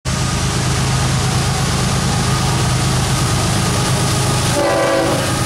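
Norfolk Southern GE wide-cab diesel locomotives hauling a double-stack intermodal train past at close range: a steady low engine rumble over the rushing noise of the train. The multi-tone air horn sounds once, briefly, about four and a half seconds in.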